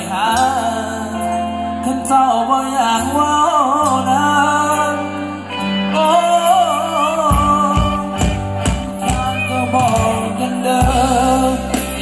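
Live band playing Thai ramwong dance music: a singer's voice over steady low bass notes, with a drum beat coming in a little past halfway.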